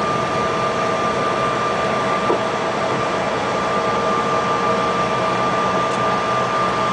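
Cabin noise of a Bombardier CRJ on its landing rollout: a steady rush of air and engine noise from its rear-mounted turbofans, with a steady high whine running through it.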